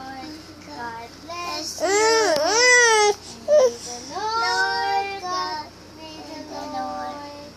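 Young girls singing in high voices, with sliding up-and-down vocal swoops that are loudest about two to three seconds in.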